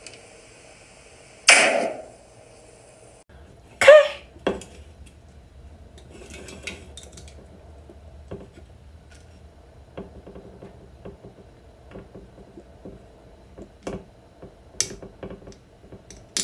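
Aluminium soda cans being tapped and opened: a loud burst from a Coca-Cola can about one and a half seconds in and another just after four seconds, then a long run of small clicks and taps of a fingertip on a Coke Zero can's pull tab, ending in a sharp click as the tab is lifted.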